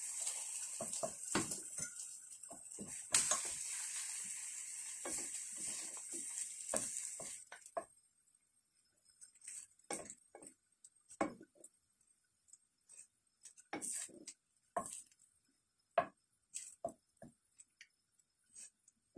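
Beaten egg and bread frying in butter in a nonstick pan, sizzling steadily under the scrape of a wooden spatula. About eight seconds in the sizzle stops abruptly, leaving only scattered taps and scrapes of a fork and wooden spatula against the pan as the egg is folded over the bread.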